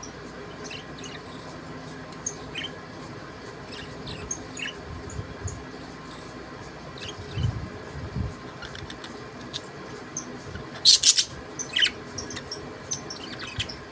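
Budgerigars chirping and squeaking in short, scattered calls, with a louder burst of chirps near the end. A couple of low thuds come midway.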